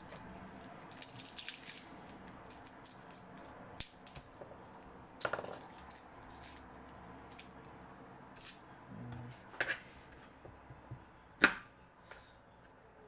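Garlic cloves being peeled by hand: faint crackling and rustling of the dry papery skin, with a few sharp clicks scattered through.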